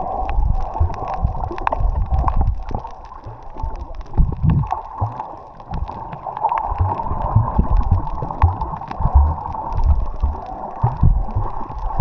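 Ride on a moving boat: water rushing past the hull, with irregular low buffeting of wind on the microphone.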